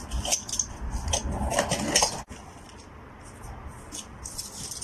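Small cardboard parcel being torn open by hand: quick crackling and tearing of tape and cardboard for about two seconds, then fainter, scattered rustling as the flaps are pulled back.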